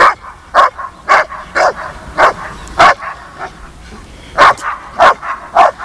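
Groenendael Belgian shepherd dogs barking at a cat up a tree: short, sharp barks about every half second, a pause, then three more near the end.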